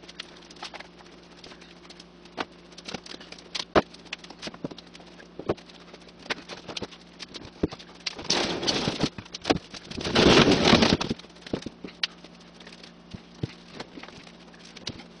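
Display cabinets being handled and moved by hand: scattered knocks, taps and footsteps, with two longer scraping, rustling noises about eight and ten seconds in.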